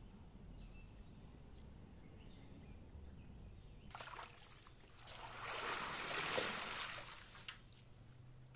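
Hands swishing and stirring bunches of fresh herbs in a large steel basin of water: water sloshes and splashes, starting around the middle and loudest for a couple of seconds, then a few small splashes as it dies away.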